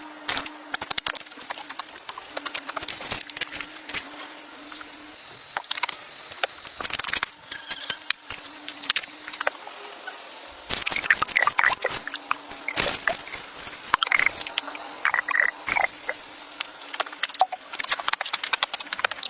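Irregular sharp clicks, crunches and knocks, busier in the second half, over a steady high insect drone.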